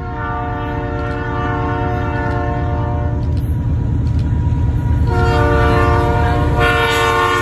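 Diesel freight locomotive approaching and sounding its air horn in two long blasts, the first for about three seconds, the second starting about five seconds in. A low engine rumble grows louder as it nears.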